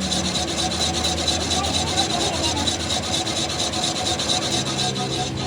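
Rapid, even rasping or scraping, many strokes a second, that stops shortly before the end, over a steady low hum.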